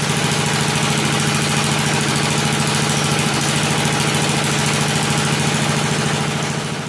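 The small engine of an old Montgomery Ward riding mower running steadily at a constant speed.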